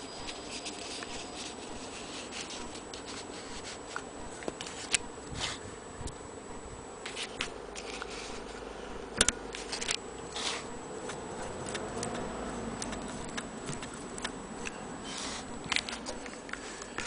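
Cloth being handled and shifted under a sewing machine's presser foot: irregular rustling with a scattering of sharp clicks over a faint steady hum, with no regular stitching rhythm.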